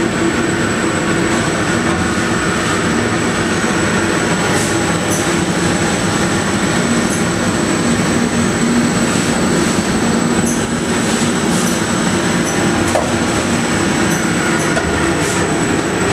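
Pneumatic conveying system for hand towels running: a loud, steady rush of air and machine drone with a thin high whine, and scattered light ticks.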